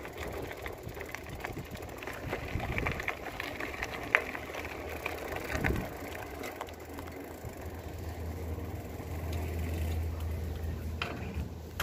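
Bicycle rolling over pavement: a steady rolling noise with a few sharp clicks, and a low hum coming in during the second half.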